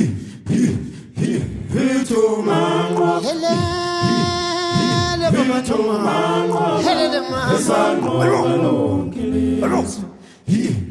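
Unaccompanied group of voices singing in harmony, holding one long chord for about two seconds a little over three seconds in.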